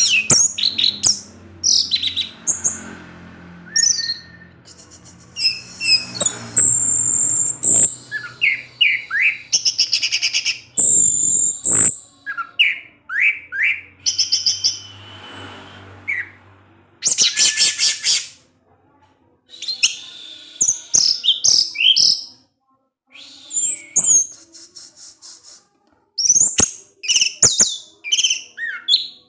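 Orange-headed thrush singing a long, varied song of quick whistled notes and rapid chattering trills, delivered in bursts with brief pauses.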